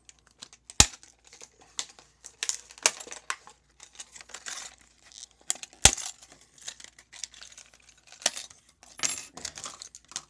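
A new disc padlock being taken out of its retail packaging and handled: plastic crinkling and tearing, with many sharp metallic clicks and two louder knocks, about a second in and about six seconds in.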